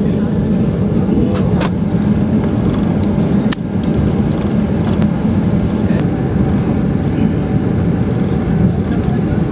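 Airliner cabin noise while taxiing: a steady engine and air hum heard from inside the cabin, with a few light clicks in the first few seconds.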